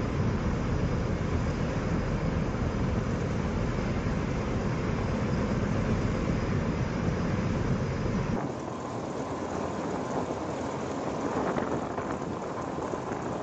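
Aircraft turbine and rotor noise on a ship's flight deck: a heavy, steady low rumble beside a running Marine helicopter, changing abruptly about eight seconds in to a lighter rushing noise as an MV-22 Osprey tiltrotor lifts off.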